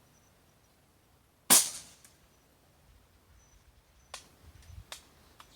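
Single shot from a Benjamin Marauder pre-charged pneumatic air rifle: one sharp report about a second and a half in that dies away within half a second. About two and a half seconds later come several quick metallic clicks of the rifle's bolt being worked.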